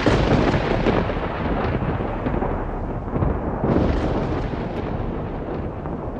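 Thunder sound effect for lightning: a sudden loud thunderclap at the start that rumbles on, then a second crack about four seconds in that slowly dies away.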